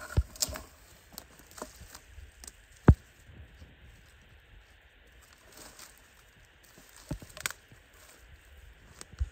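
Dry twigs and branches in a brush pile cracking, snapping and rustling as hands push into it. The clicks are scattered, with one sharp snap about three seconds in and a quieter stretch in the middle.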